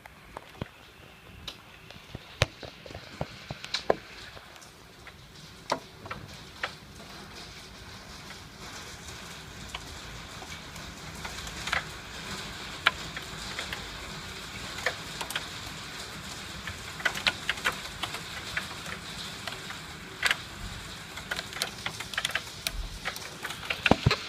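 Heavy hail shower: a steady hiss of hail and rain with sharp, irregular clicks of hailstones striking hard surfaces. The downpour grows steadily louder as it goes on.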